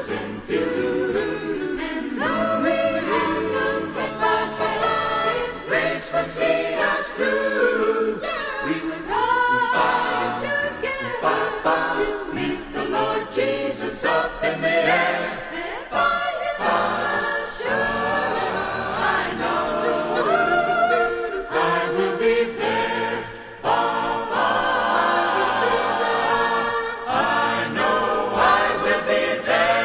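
Choir singing a 1970s contemporary Christian song.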